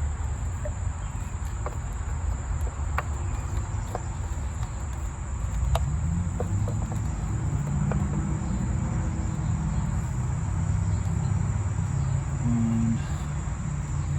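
A steady, high-pitched cricket trill over a continuous low rumble, with a few light, sharp clicks from the ignition coil and its connector being worked back into place on the engine.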